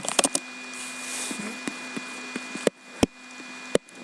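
A few sharp clicks and knocks, scattered and uneven, over a steady electrical hum with a faint high tone.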